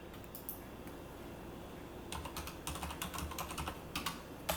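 Computer keyboard keys clicking: a couple of taps, then a quick run of typing in the second half.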